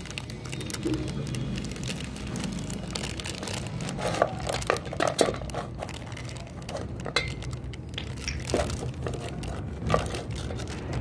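Thin polythene sheets crinkling and crackling under hands pressing potato papad dough flat between them, in irregular crackles that are thickest around the middle.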